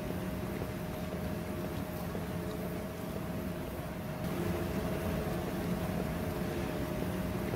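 Steady low machine roar with a constant hum running through it, getting a little louder after a cut about four seconds in.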